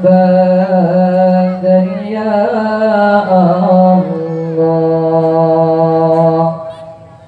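A male qari reciting the Quran in melodic tilawah style through a microphone and loudspeakers, holding long, ornamented notes. The phrase fades out about six and a half seconds in, leaving a short pause for breath near the end.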